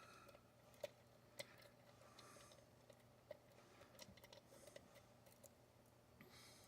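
Faint, irregular clicks and ticks of a thin metal pick hook working inside a dimple lock's keyway against tension wrenches. Two sharper clicks come between about one and one and a half seconds in.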